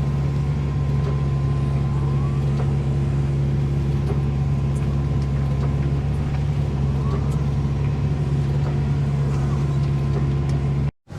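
Caterpillar excavator's diesel engine running steadily under work while digging a drainage ditch, with faint rising whines about two and seven seconds in; the sound cuts off abruptly near the end.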